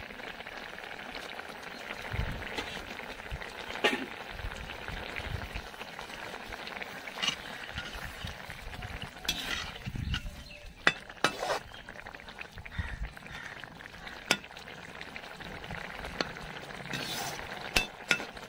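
Fish curry bubbling and sizzling in a metal wok, with a metal slotted spatula clinking and scraping against the pan several times as it is stirred; the sharpest clinks come near the middle and near the end.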